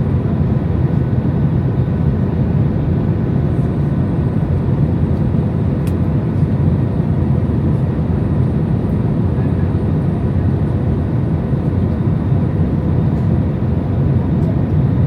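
Steady low rumble of engine and airflow noise inside the cabin of an Airbus A320-200 in flight, with a few faint steady tones above the rumble.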